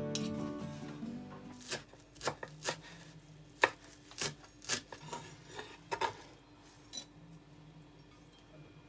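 A chef's knife chopping fresh parsley on a wooden cutting board: about ten sharp, irregular knocks, stopping a little before the end.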